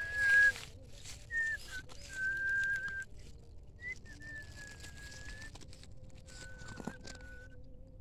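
Someone whistling a run of long, level notes at nearly the same pitch, each held about a second, the first loud and the later ones fainter. A faint steady hum sits underneath.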